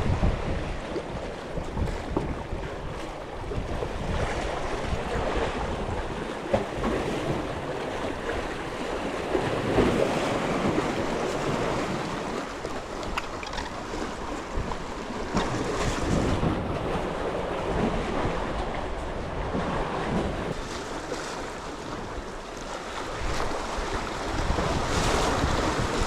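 Sea waves washing on the shore, with wind buffeting the microphone in gusts.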